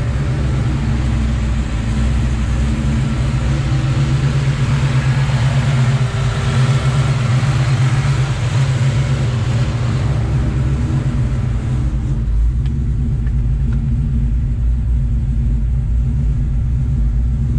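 Supercharged 4.6-litre V8 of a 2003 Ford Mustang Mach 1 running with a steady low note; a brighter hiss builds in the middle and drops away about twelve seconds in.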